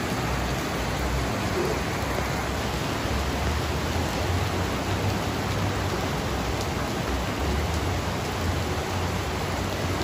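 Steady rushing noise of muddy flash floodwater and falling rain, with a low rumble that swells and fades underneath.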